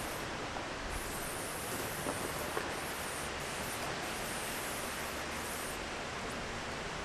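Steady, even hiss with a few faint ticks in the first few seconds.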